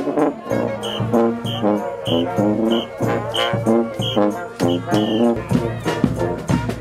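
Street brass band playing, horns including trombones and trumpets over a steady drum beat, with a short high note repeating about twice a second from about a second in until about five seconds in.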